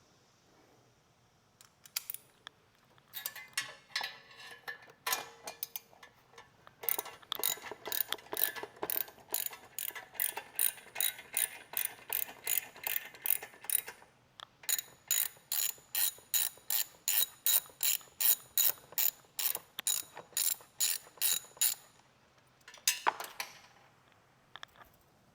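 Hand ratchet wrench clicking as a fastener is turned. After a few scattered clicks, it goes in two long, even runs of about three clicks a second, with a brief pause between them.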